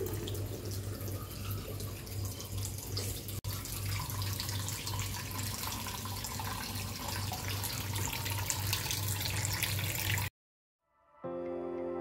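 Water running from a tap in a steady rush with a low pulsing hum beneath it, cut off abruptly about ten seconds in. After a moment of silence, gentle music begins near the end.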